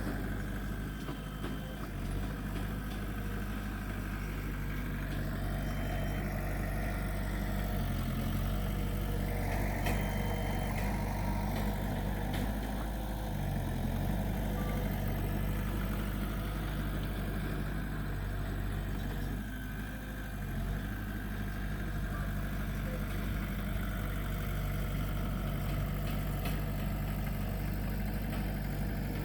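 Komatsu D20P bulldozer's diesel engine running steadily, its note dipping and rising a few times as it works.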